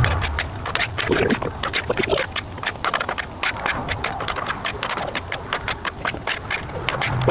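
Two metal spatulas scraping and clacking on the steel top of a Blackstone flat-top griddle as sweet potato slices are turned and pushed together: a fast, uneven run of sharp scrapes and clicks.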